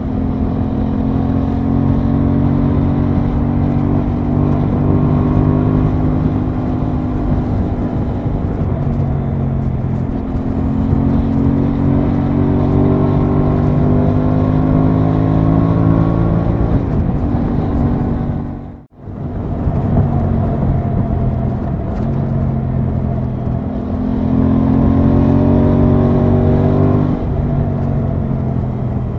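Aprilia Tuono 660's parallel-twin engine running at road speed, heard from the rider's seat. Its note holds fairly steady, dipping in pitch about ten seconds in and again near the end. The sound cuts out for a moment about two-thirds of the way through.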